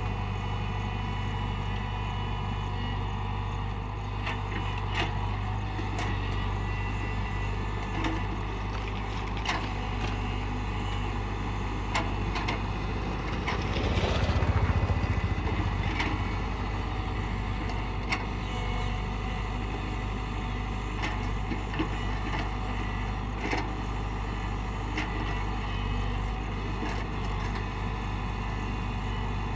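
Tata Hitachi excavator's diesel engine running steadily under work, with scattered short knocks. About halfway through it grows louder for a couple of seconds.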